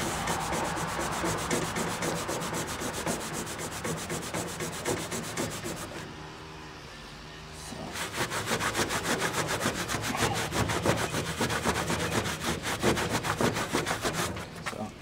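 Microfiber cloth with Quick-Glo polish scrubbed rapidly back and forth over aluminium diamond-plate, a fast rhythmic rubbing as oxidation is polished off the metal. It eases off about six seconds in and picks up harder again at about eight.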